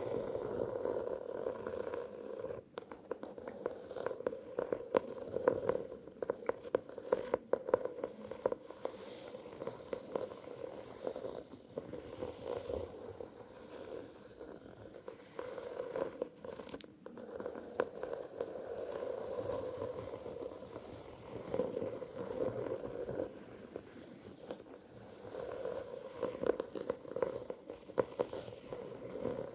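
Close-miked ASMR tapping and scratching: fingernails scratching in a steady rasp, broken by quick runs of rapid taps several times.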